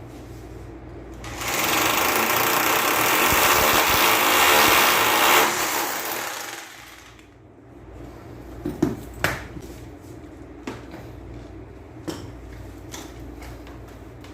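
A power tool runs steadily for about five seconds, then stops, followed by a few sharp knocks.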